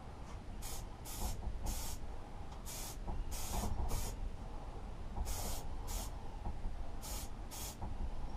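Aerosol spray paint can hissing in about ten short bursts, two or three of them held for about half a second, as metal parts are sprayed black.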